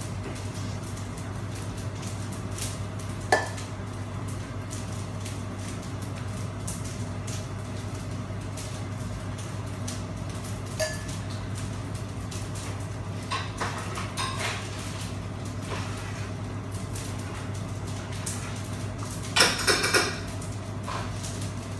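Metal slotted spoon scooping cooked white rice out of a nonstick pot into a serving dish, clinking against the pot and dish now and then, with one sharp ringing clink about three seconds in. A louder burst of clattering comes near the end, and a steady low hum runs underneath.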